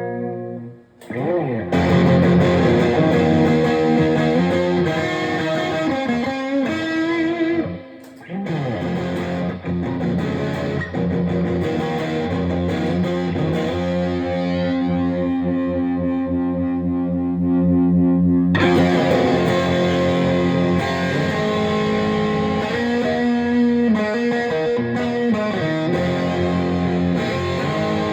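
Electric guitar played through a Bogner Shiva tube amplifier with EL34 power valves. The guitar plays chords and riffs, with two brief breaks early on, then a long held chord ringing out for several seconds before the playing picks up again.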